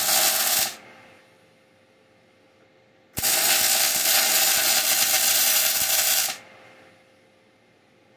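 Welding arc sizzling and crackling in two runs. The first cuts off just under a second in. The second starts sharply about three seconds in and runs steadily for about three seconds before stopping.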